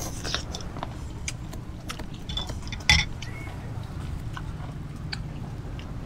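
Close-up eating sounds: biting and chewing pickled seafood, with small wet clicks and one louder sharp bite about three seconds in, over a steady low hum.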